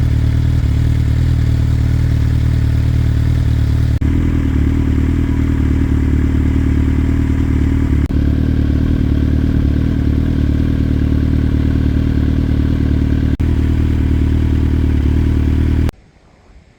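An engine running steadily at an even speed, with brief breaks a few times where the footage is cut.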